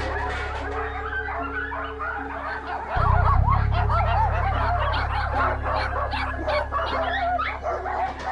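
Many kennelled dogs barking in quick, overlapping calls, over background music with deep held bass notes that step to a new note about three seconds in.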